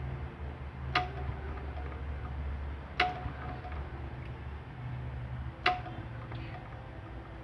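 Three sharp metallic clicks, each with a brief ring, irregularly spaced about two to three seconds apart, from the Wolseley WD8 stationary engine as it is handled between start attempts; the engine is not running.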